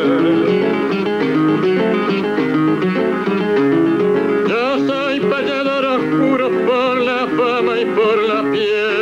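Acoustic guitar playing a payada accompaniment, joined from about halfway by a man singing a long, wavering phrase.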